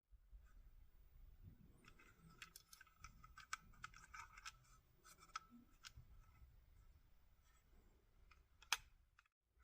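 Faint clicks and scratches of toy packaging being handled and opened, with one sharper click near the end.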